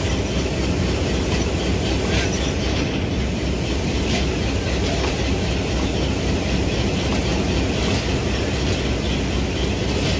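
Pakistan Railways passenger coaches rolling past close by: a steady rumble of steel wheels on the rails, with occasional clicks as the wheels cross the rail joints.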